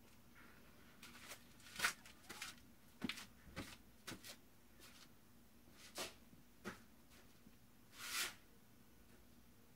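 Faint, scattered rustling and scratching as a mother cat and her newborn kittens stir on the bedding in a plastic box: about seven short rustles, the loudest about two seconds in and another near the end.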